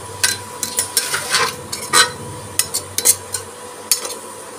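Steel slotted spoon stirring and scraping spiced onion masala in an aluminium pressure cooker, with irregular metal-on-metal clinks and scrapes.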